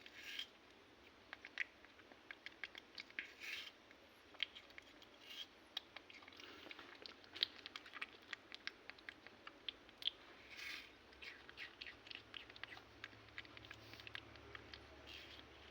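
Faint, irregular small clicks and taps, with a few brief rustling bursts.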